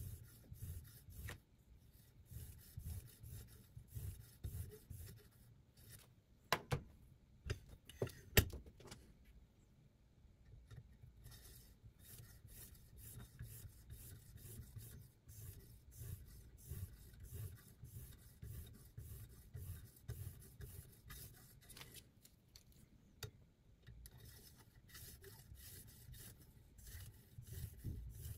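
Sharpening stone on the guide rod of a Sytools Beast knife sharpening system rubbing back and forth along a chef's knife blade in quick repeated strokes. A few sharp knocks come about seven to eight seconds in, and the strokes stop briefly twice.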